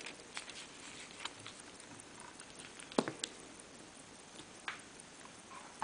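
Handling noise from a wristwatch and its leather strap being turned and set down by hand: scattered small clicks and rustles, with one sharp click about three seconds in.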